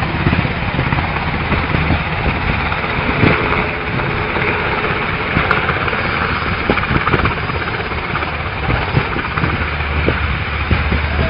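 Helicopter flying low nearby: steady rotor and engine noise, with a low hum that grows stronger near the end.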